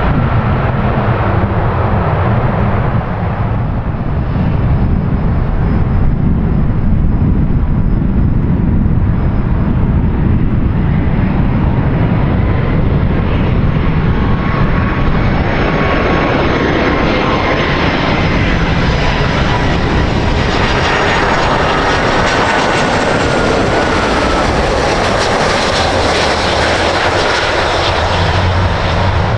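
Jet airliner engines passing close: a loud low rumble throughout, with a hissing whine that swells over the second half as a few faint tones slowly fall in pitch.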